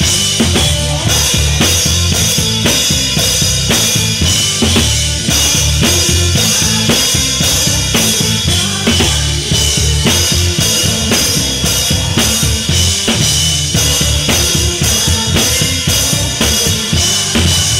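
Acoustic drum kit played with wooden sticks: a steady, continuous groove on bass drum, snare and toms with cymbal strokes, loud throughout.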